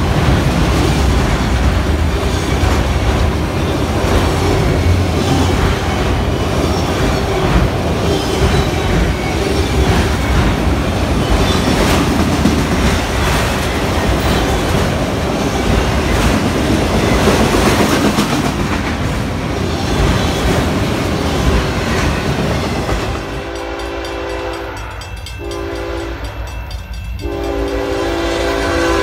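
Freight train of autorack cars rolling past close by: a steady rumble and rattle with the wheels clicking over the rail joints. About 23 seconds in it gives way to a diesel locomotive's horn sounding for a grade crossing as the train approaches. The horn plays a held chord, broken twice briefly.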